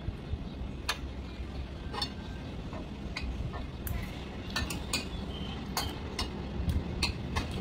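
Metal spoon and fork clinking and scraping against a ceramic plate while food is cut and scooped, a dozen or so light, irregular clicks.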